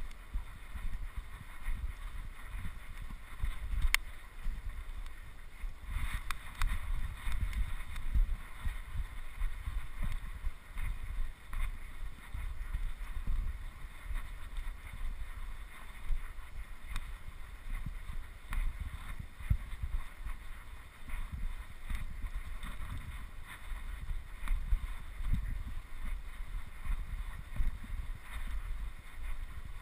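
Wind rumbling on the microphone in uneven gusts, with faint scattered clicks and rustles.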